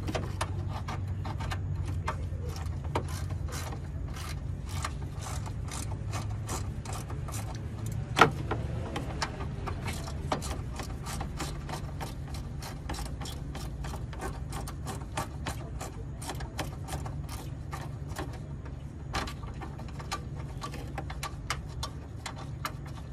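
Ratcheting wrench clicking in a rapid, steady run as it backs out a condenser mounting bolt, with one sharper metallic clink about a third of the way in. A low steady hum sits underneath.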